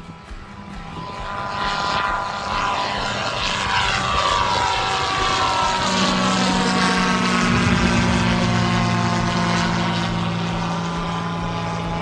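Light propeller airplane's engine and propeller passing close by, growing louder over the first couple of seconds, with its tones sweeping down in pitch as it goes past. A steady low drone carries on afterwards.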